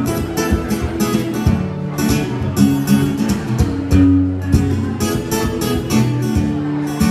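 Acoustic guitar strummed in a steady rhythm, chords ringing between the strokes, with no singing.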